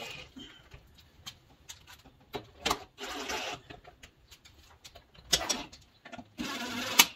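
Cordless drill running in two short bursts, about three seconds in and again near the end, driving the spare tire carrier's bolts, with a few sharp clicks of tool and metal in between.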